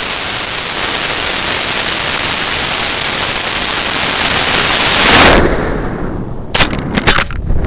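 Loud, steady rush of rocket motor and airstream noise on a model rocket's onboard camera during its climb, swelling and then falling away about five seconds in. Gusty wind buffeting follows, with a few sharp bangs and knocks near the end as the dual-deploy recovery system fires.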